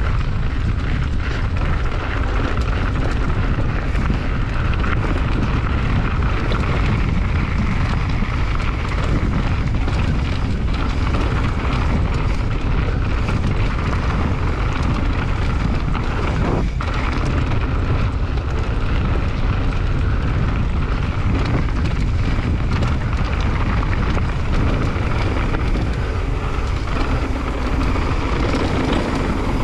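Steady wind rumble on the microphone of a mountain bike riding downhill. Under it, the tyres roll over the dirt trail and small rattles and clicks come from the bike.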